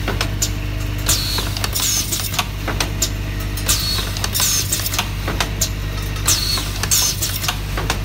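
Automatic pin header assembly machine running: a steady low electrical hum under repeated sharp mechanical clicks and short high falling squeals about once a second as the pin strip is indexed through the right-angle bending station.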